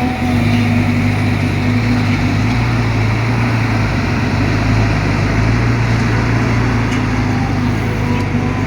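Excavator's diesel engine running steadily with a constant low hum while digging.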